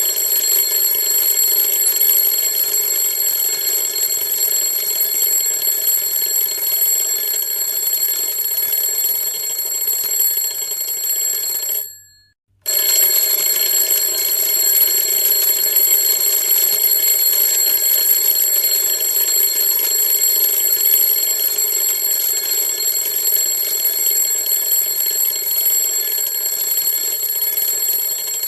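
Alarm clock ringing continuously in a steady, unbroken ring. About twelve seconds in it fades out for half a second and starts again.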